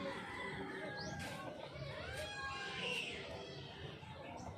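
Birds chirping in short rising calls, with faint people's voices underneath.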